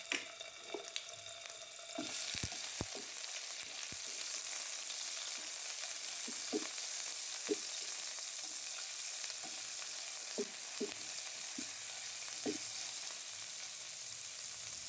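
Ginger-garlic paste sizzling in hot oil in a nonstick pan, the sizzle growing louder about two seconds in as it is stirred and spread. A spatula knocks against the pan now and then.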